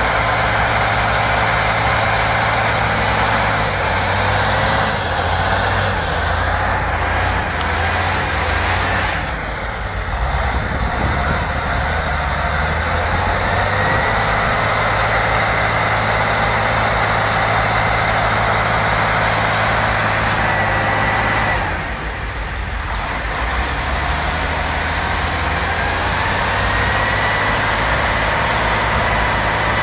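Logging truck's heavy engine running steadily, with a high whine on top. The engine sound drops briefly twice, about 9 and 22 seconds in, and the whine climbs back up after each drop.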